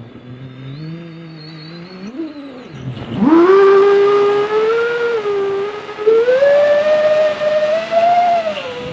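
FPV quadcopter's brushless motors whining, heard from the onboard camera. The pitch stays low at low throttle for about three seconds, then shoots up sharply as the throttle is punched. It climbs higher again around six seconds and eases down slightly near the end.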